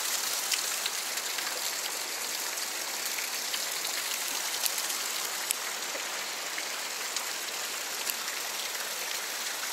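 Steady hiss of a fast-flowing stream and falling rain, with a few faint, scattered ticks.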